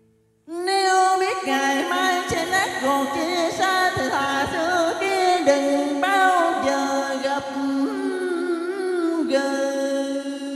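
Vietnamese cải lương music: a man singing a drawn-out, bending melody into a microphone over backing music, with a few soft percussion hits. It starts about half a second in and fades near the end.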